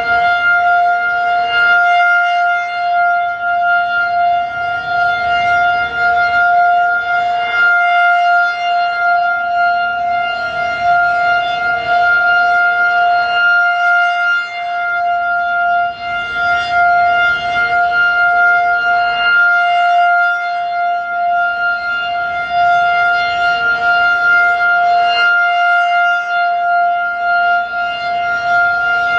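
Federal Signal 2001-DC outdoor warning siren sounding its loud, steady alert tone. The sound swells a little about every six seconds as the fast-spinning rotator, turning at 10 RPM, sweeps the horn past.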